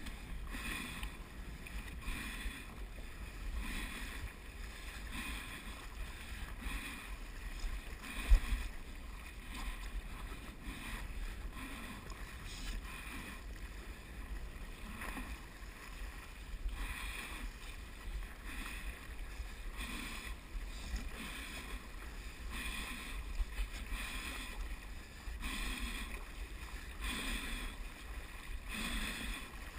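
Stand-up paddleboard paddle strokes: the blade dipping and pulling through sea water about once a second, with water washing along the board and a low wind rumble on the microphone. A single sharp knock about eight seconds in.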